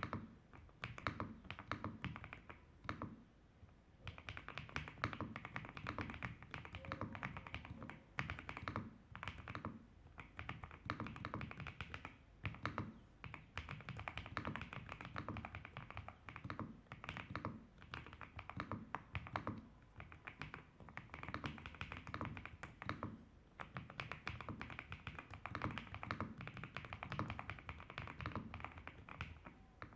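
Typing on a Riccks RS8 mechanical keyboard with KTT Strawberry V2 linear switches and Ghost Judge Astronaut keycaps: a dense, continuous run of keystrokes broken by a few short pauses.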